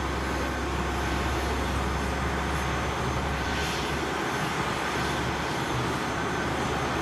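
Steady jet airliner noise around a Boeing 767-300 at pushback: an even low rumble with a faint high whine.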